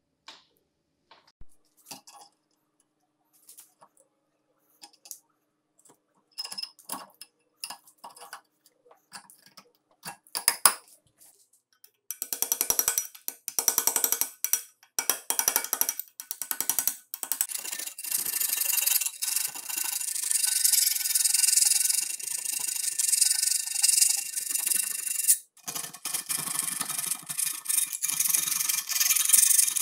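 Steel knife blade clamped in a bench vise. For the first dozen seconds there are scattered clicks and knocks of metal being handled and set in the vise jaws. Then a small scraper scratches rust off the blade continuously, and from about 25 seconds in a flat hand file rasps across the rusty steel in strokes.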